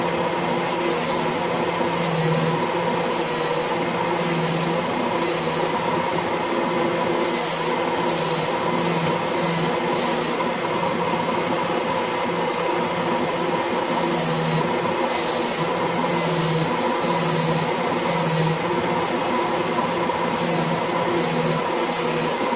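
Work Sharp Ken Onion knife sharpener with the blade grinder attachment running steadily, its motor and belt giving a constant hum. A dagger blade is drawn across the abrasive belt in repeated strokes, each a hissy grind lasting under a second. The strokes come in runs of several, with short pauses between the runs.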